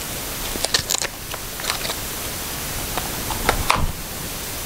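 Steady hiss with scattered light clicks and rustles of small packaging being handled and opened, clustered around one second in and again around three and a half seconds in.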